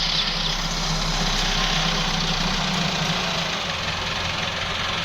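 Wheel loader's diesel engine running steadily, with its note changing about halfway through.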